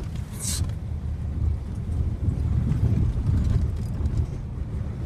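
Off-road truck driving slowly along a rough trail: a steady low engine and drivetrain rumble, with a short hiss about half a second in.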